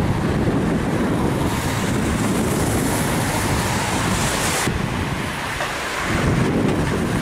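Wind buffeting the microphone: a steady low rumble, with a higher hiss that builds for a few seconds and cuts off abruptly about two-thirds of the way through.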